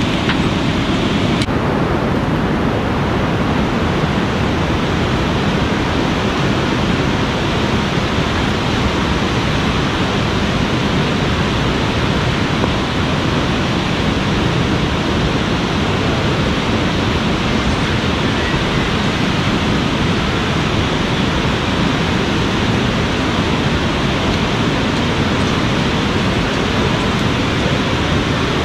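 Steady rushing of a fast-flowing river swollen by rain, mixed with falling rain.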